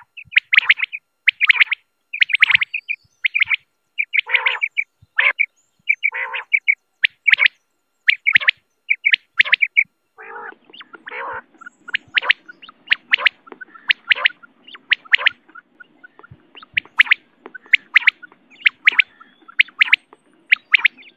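Quail calling over and over: short, sharp notes in quick clusters with brief gaps between. A faint low hum joins underneath about halfway through.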